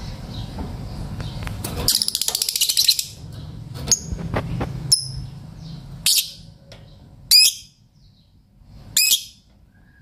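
Caged lovebirds calling: a rapid buzzy chatter about two seconds in, then five shrill chirps, the loudest about seven seconds in, the last two warbling up and down.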